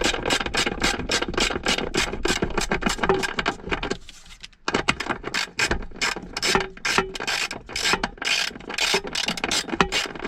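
11 mm stubby ratchet clicking in quick, even strokes, about five a second, as it drives a self-tapping screw into plastic, with a short pause about four seconds in.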